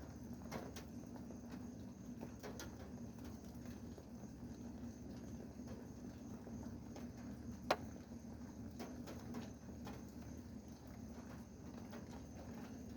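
Rain falling, heard as scattered drops tapping irregularly on a hard surface, with one sharper, louder tap about eight seconds in. A steady low hum runs underneath.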